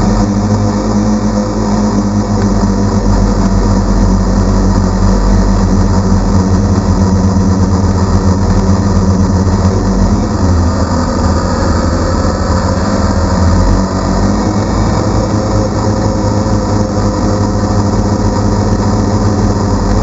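DJI Phantom quadcopter's motors and propellers, a loud, steady buzz heard from the onboard camera. The pitch shifts slightly now and then as the motor speeds change in flight.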